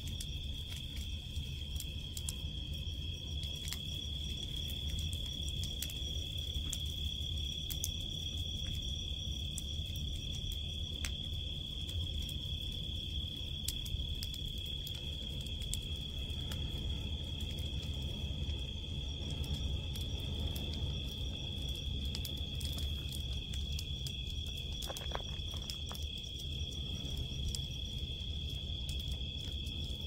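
Crickets chirring in one steady high note while a burning brush-pile bonfire crackles and pops with scattered sharp snaps, over a low rumble.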